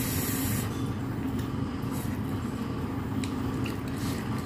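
Steady low mechanical hum, with a short hiss in the first half second and a few faint clicks.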